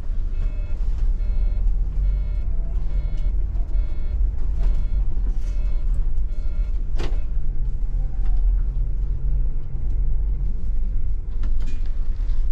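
Intercity bus engine and road rumble heard from inside the bus, with a reversing alarm beeping about twice a second for the first four seconds. A single sharp knock about seven seconds in.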